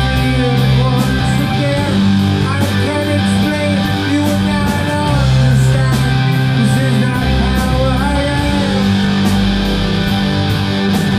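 Live rock band playing: electric guitars over a steady drum beat, with a bending lead line in the middle range.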